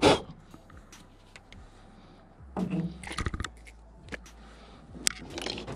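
Scattered clicks and knocks of fishing gear being handled in a boat. The loudest is one sharp knock at the very start, and a cluster of clicks comes in the middle.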